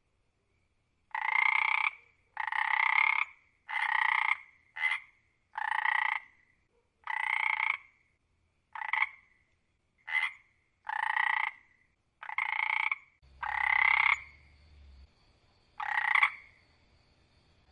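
A frog croaking over and over, about a dozen calls spaced roughly a second apart, most lasting under a second and a few short and clipped. A faint steady high tone and a low hum come in about two-thirds of the way through.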